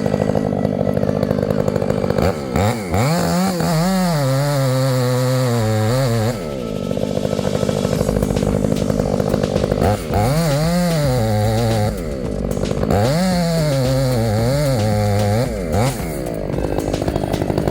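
Chainsaw running loudly, revved up three times. Each time the pitch climbs, then sinks and holds lower for a second or two, as the chain bites into wood under load.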